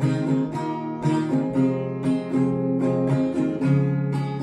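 Acoustic guitar strummed in a steady rhythm, about two strums a second, with chords ringing on between strokes.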